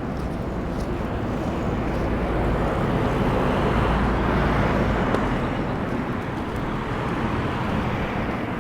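A vehicle passing on a city street, its tyre and engine noise swelling to a peak about midway and then fading.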